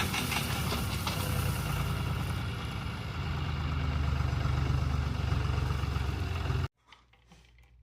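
A vehicle engine running steadily with a low drone, cutting off abruptly near the end.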